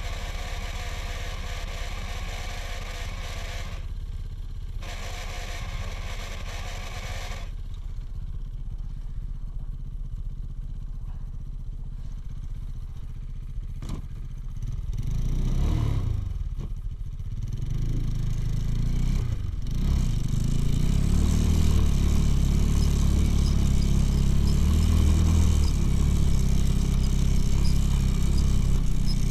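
Engine of an all-wheel-drive motorcycle running steadily at low revs, revved up and down a few times about halfway through, then pulling steadily and louder as the bike rides through snow.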